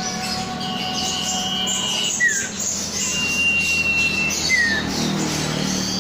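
Common iora (cipow) singing: long, steady, high whistles, each followed by a short falling note, twice, with a third whistle starting near the end. Quicker high chirps run underneath.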